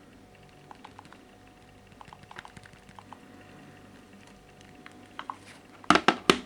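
Light taps and clicks of smartphones being handled, with a quick cluster of four or five loud sharp clicks near the end, over a faint steady hum.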